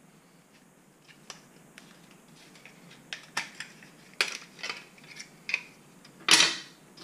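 Small metal bracket parts clicking and clinking as they are worked by hand with a screwdriver: faint ticks at first, sharper clicks from about three seconds in, then a louder clatter near the end as a metal piece is set down on the wooden desk.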